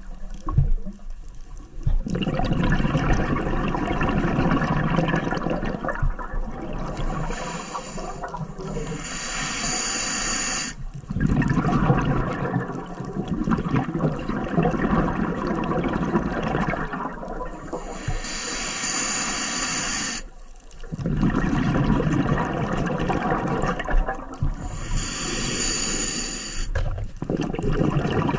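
Scuba diver breathing through a regulator underwater: long bubbling exhalations, each followed by a high hissing inhale, about three breaths in all.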